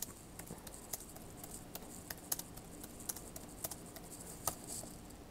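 Faint, irregular clicks of typing on a computer keyboard, a few keystrokes a second, with a sharper click right at the start and another about four and a half seconds in.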